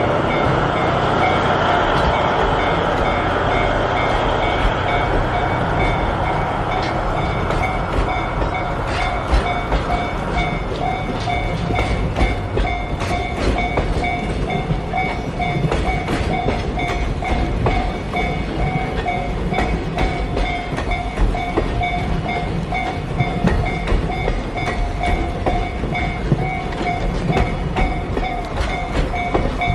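A DF200 diesel-electric locomotive hauling a freight train through a level crossing: the engine is loud for the first ten seconds or so, then the wagons follow with a continuous clatter of wheels over rail joints. The crossing's warning bell rings steadily in a pulsing two-tone pattern throughout.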